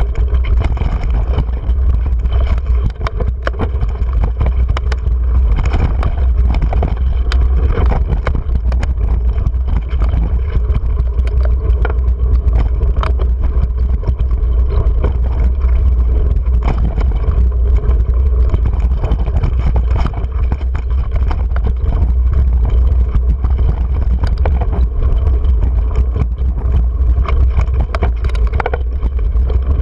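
Mountain bike ridden fast down rocky dirt singletrack, heard through a GoPro: a steady low rumble with frequent knocks and rattles as the bike runs over rocks and ruts.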